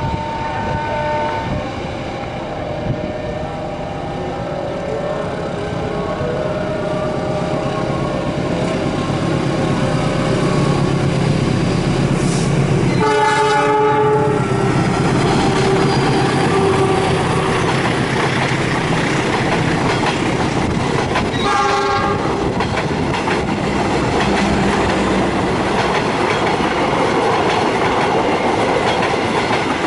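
Passenger train hauled by a diesel locomotive approaching and passing at speed, with two short horn blasts about eight seconds apart. The rumble and clack of the wheels on the rails grows and then stays loud.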